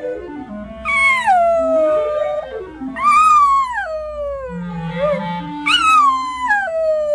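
A dog howling along to classical music, three long howls that each start high and slide down in pitch. The music plays underneath from speakers.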